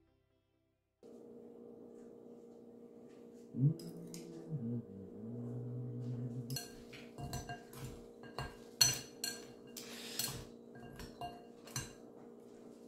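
A metal fork and chopsticks clinking and scraping against a ceramic bowl in quick irregular taps while noodles are mixed and eaten. A low steady tone runs for a few seconds before the clinking starts.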